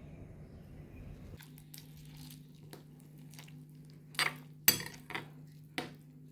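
Dishes and utensils clinking in a kitchen: a handful of sharp knocks and clinks, the loudest about three-quarters of the way through, over a steady low appliance hum.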